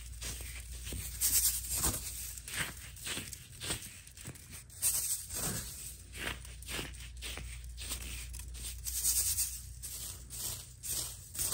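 Coloured baking soda chunks crunched and crumbled between fingers against a metal mesh strainer: a quick, irregular series of dry crunches, about two a second.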